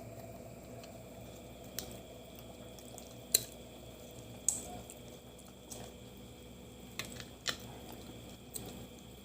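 Quiet eating sounds from a crab meal: scattered small clicks and cracks of crab shell being handled and pulled apart, with wet squishing. The sharpest crack comes about three and a half seconds in.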